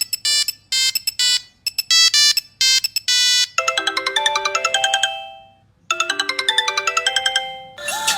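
Old 1990s-era mobile phone ringtones. First come about three and a half seconds of rapid short electronic beeps in quick clusters, then a short beeping melody that plays twice with a brief gap between.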